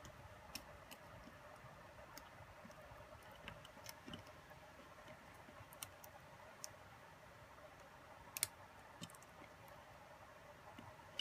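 Faint scattered clicks and taps from small gimbal parts being handled, over quiet room tone, with a sharper double click about eight seconds in.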